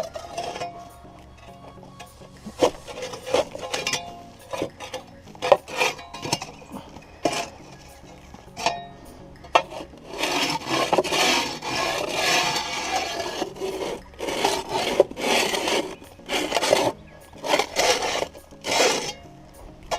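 Packed dirt being scraped and knocked out of an excavator's track undercarriage with a hand tool: scattered knocks and short scrapes at first, then a run of dense, repeated scraping strokes from about halfway, under background music.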